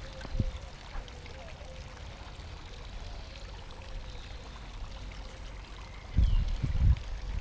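Small garden pond fountains trickling and splashing into the water, a soft steady sound, with a couple of louder low rumbling bursts near the end.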